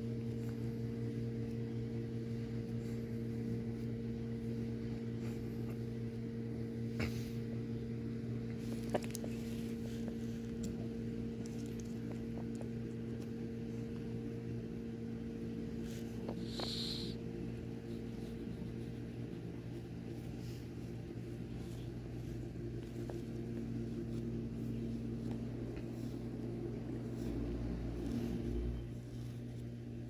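Steady low electrical hum, as from a household appliance's motor. A short high squeak about seventeen seconds in, a few soft clicks, and low bumps near the end.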